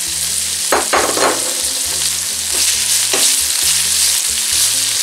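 Sliced onion and poblano pepper strips sizzling in oil in a stainless frying pan as they start to sauté, with a slotted plastic spatula stirring and scraping the pan, a few louder scrapes about a second in and near three seconds.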